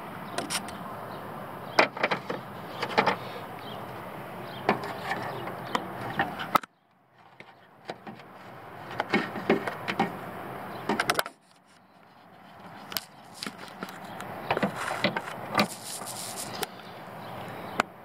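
Handling noise: scattered clicks, taps and scrapes of hands and the camera moving among the plastic fender liner and wiring behind a pickup's headlight, over a steady background hiss. Twice the sound drops out almost to silence and slowly comes back.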